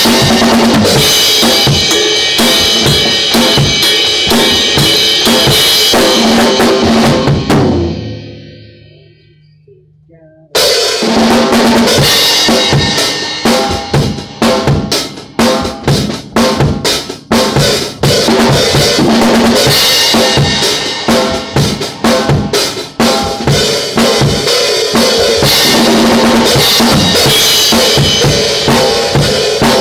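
Acoustic drum kit played as a pop/rock/funk groove: bass drum, snare with rimshots, and Paiste cymbals washing. A little after seven seconds the playing stops and the ring dies away; about ten and a half seconds in it comes back in abruptly. Several seconds of spaced, stop-start accents follow, then the full groove resumes.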